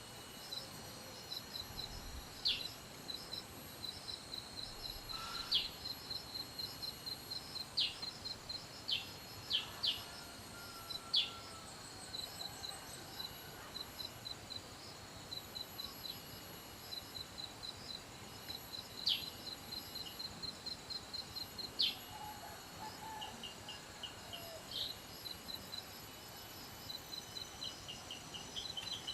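Birds chirping in quick runs of short, high notes, with now and then a sharp single call, over a steady high-pitched insect drone.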